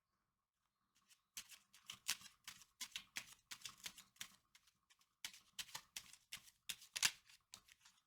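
A deck of tarot cards being shuffled by hand: a fast run of crisp card-on-card flicks starting about a second in, with a brief pause around the middle.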